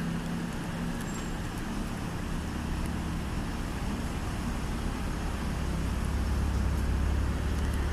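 City street traffic noise: a steady road hum, with a low engine rumble that builds through the second half.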